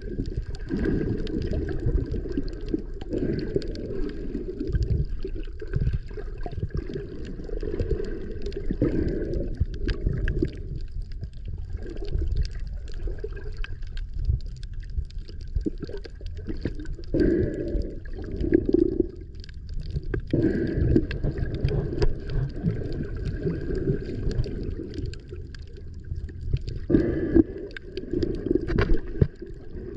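Muffled underwater sound picked up by a submerged camera: a low, rumbling wash of moving water that swells and eases, with faint steady high tones above it.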